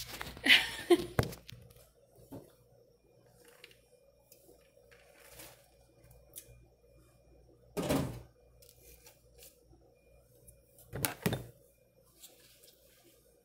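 Cookware handling over a faint steady hum: a rustle of the phone being moved at the start, small soft clinks and rustles, then two sharp knocks of cookware, about eight seconds in and again about three seconds later.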